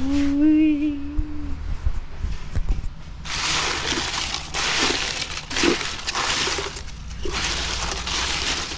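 Paper banknotes rustling and crackling as a hand stirs through a box piled with them, in several bursts starting about three seconds in. A short hummed voice sound comes at the very start.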